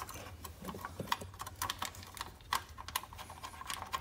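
Irregular light clicks and taps of small parts being handled: the voltage regulator and its plastic wire connector being fitted against the engine.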